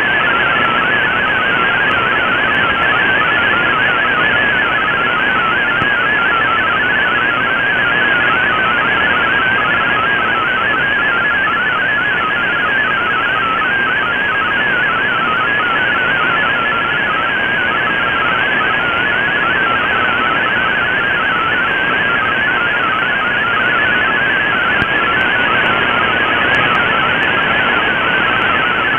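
MFSK32 digital data signal from a shortwave broadcast, received in AM on an Icom IC-R8600: a continuous warble of rapidly hopping beep-like tones over steady shortwave static hiss.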